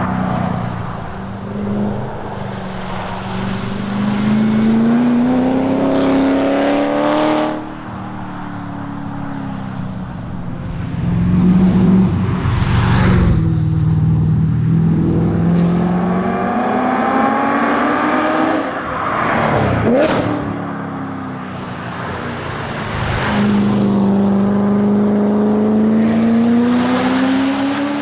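Chevrolet Corvette C7 Z06's V8 driven hard, its note climbing under acceleration and falling away again several times as it shifts or lifts off. A sharp crack stands out about twenty seconds in.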